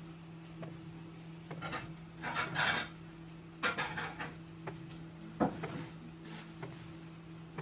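Intermittent rubbing and scraping handling noises with a sharp knock about five and a half seconds in, over a steady low hum.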